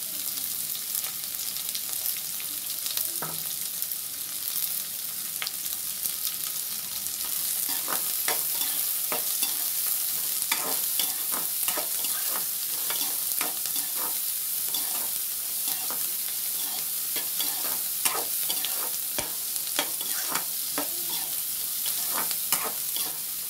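Chopped onions sizzling as they fry in hot mustard oil in an aluminium kadhai, with a spatula scraping and knocking against the pan as they are stirred. The steady sizzle runs underneath, and the scrapes come thick and fast from about eight seconds in.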